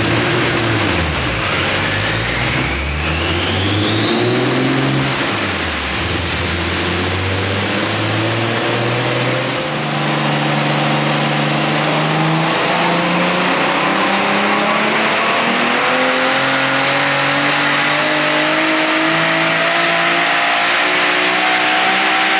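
Nissan Skyline R32 GT-R's RB26DETT straight-six, converted to a big single BorgWarner turbo, running under load on a dyno during tuning. Its note is held at a series of steady engine speeds that step up and down. Over it a high turbo whistle rises in pitch over the first ten seconds, and another climbs slowly near the end.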